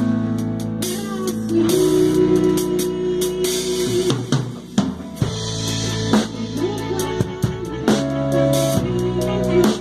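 Full worship band playing together in rehearsal: drum kit with repeated drum and cymbal hits over electric guitars, bass and keyboard holding sustained notes.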